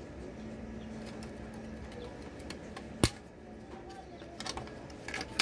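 Plastic clicks and snaps from a ZLT S10G modem's plastic housing being pried apart and its circuit board pulled free. There is one sharp, loud snap about three seconds in, then a quick run of smaller clicks near the end.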